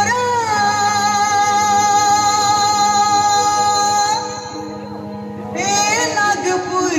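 Nagpuri dance song played over loudspeakers: a high sung voice holds one long note for about four seconds over a steady bass, the music drops back briefly, then the singing returns.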